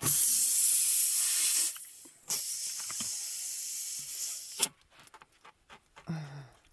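Pressurized air hissing out loudly in two spells, a short break after under two seconds, then cutting off abruptly about four and a half seconds in.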